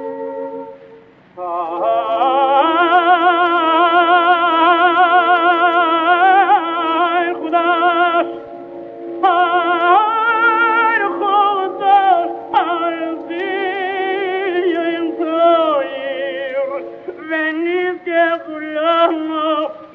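A male cantor sings a liturgical chant in a full operatic voice with a wide vibrato over sustained accompanying tones. The voice enters about a second in on a long held note, then moves into quick, ornate melismatic runs.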